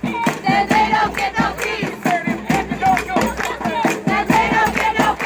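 Snare drums beaten with sticks in a quick, steady rhythm while a crowd of voices shouts together over them.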